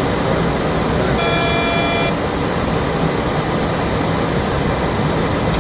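Steady rushing flight-deck noise of a Boeing 737-400 in flight: airflow and air-conditioning. A short electronic tone sounds about a second in and lasts under a second.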